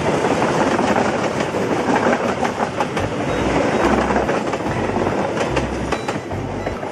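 Passenger train coaches rolling past close by at speed, a dense rushing rumble with the wheels clacking over the rail joints; from about three seconds in, low thuds of the wheel sets crossing the joints come in a repeating pattern.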